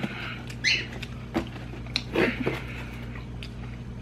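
Soft eating sounds: a few short smacks and clicks from fried chicken being pulled apart by hand and mouthed, over a low steady hum.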